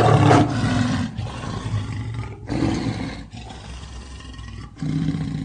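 Lion roaring: one loud, deep roar right at the start, fading over about a second, then two shorter, quieter roars about two and a half and five seconds in.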